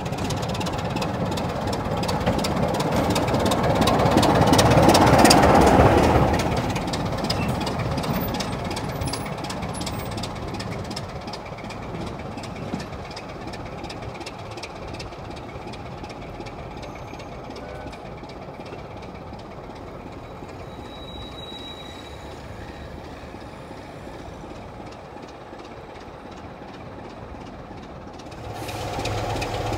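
Class 27 diesel locomotive 27001's Sulzer six-cylinder engine running as the locomotive approaches, loudest as it passes close about five seconds in, then fading steadily as it runs off into the distance. Just before the end the engine is heard close up again.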